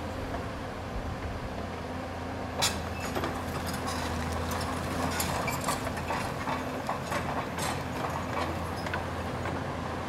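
Doosan DX255LC tracked excavator's diesel engine running steadily. A sharp knock comes about two and a half seconds in, then an irregular string of clanks and knocks.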